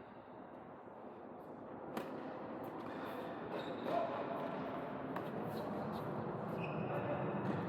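Play on an indoor tennis court: a tennis ball struck once by a racket about two seconds in, with a few lighter knocks and short squeaks afterwards, over steady echoing court noise that slowly grows louder.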